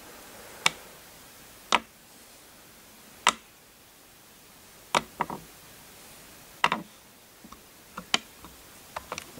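A series of short, sharp clicks and taps over a faint room hiss. They come singly about a second apart at first, then more often and in quick pairs or small clusters in the second half.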